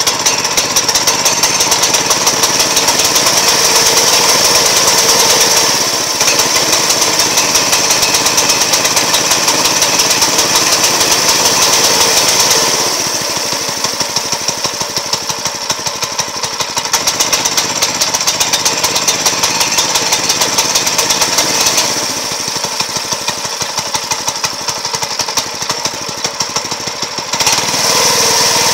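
Small pull-start single-cylinder engine of a homemade mini bike running steadily, with a fast, even firing beat. It dips in loudness about twelve seconds in and again after about twenty-two seconds, and grows louder again near the end.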